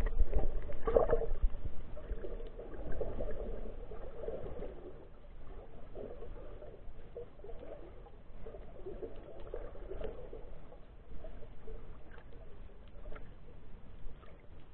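Muffled underwater sound of sea water moving and gurgling around a submerged camera, with scattered small clicks and crackles; loudest in the first couple of seconds, then quieter and steadier.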